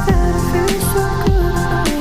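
Background music with a steady beat: sustained melodic tones over a regular low kick about every half second.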